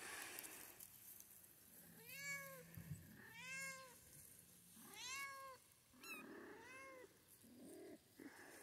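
Young kittens mewing: four high, thin meows about a second and a half apart, each rising then falling in pitch. A short burst of noise at the start.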